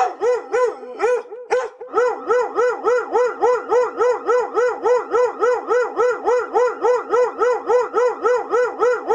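A dog barking rapidly and evenly, about three to four short pitched barks a second, with a brief break about a second and a half in.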